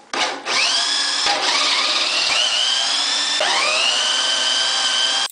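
Corded electric drill with a 7/16-inch bit boring through steel plate on a tractor loader bucket. The motor whine rises as it spins up, eases briefly about a second in, winds up again about three and a half seconds in, then stops suddenly near the end.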